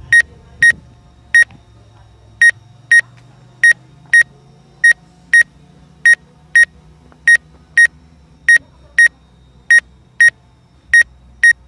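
High electronic warning beeps from the DJI Phantom 4's remote-control system, sounding in evenly repeated pairs, a pair about every second and a bit.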